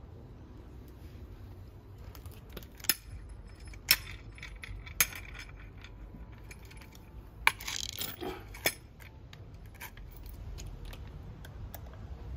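Small metal hardware clinking as it is handled: about five sharp, ringing clinks spread over several seconds, with a short rattle about eight seconds in.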